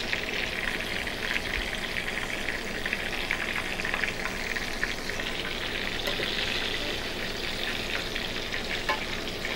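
Flour-dredged buttermilk chicken nuggets deep-frying in hot oil: a steady, fine crackling sizzle. The sizzle is quieter than at its loudest, the sign that the chicken is cooked and ready.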